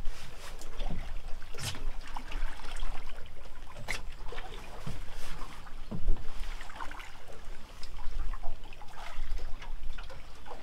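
Water trickling and lapping against a boat hull, with a steady low rumble and a few sharp knocks, two of them standing out in the first half.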